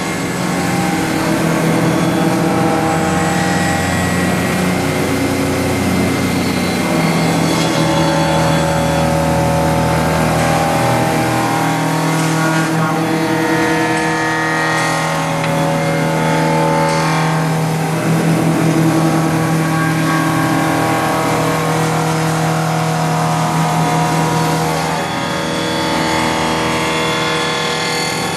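CNC milling machine cutting a turbine blade under flood coolant: a steady, loud spindle and cutting sound with several held tones over a spray hiss, its pitch shifting about seven seconds in and again near the end.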